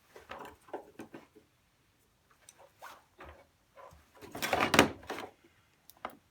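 Small clicks and knocks of a multimeter and its test leads being handled on a bench, ready to measure a lithium cell's voltage, with a louder scraping rustle about four and a half seconds in.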